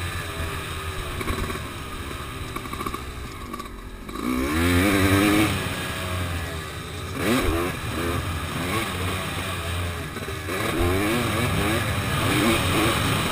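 Honda dirt bike engine revving up and down as it is ridden around a motocross track, heard from the rider's helmet camera. The revs sag about three seconds in, then climb sharply a second later, with further rises and drops through the rest of the ride.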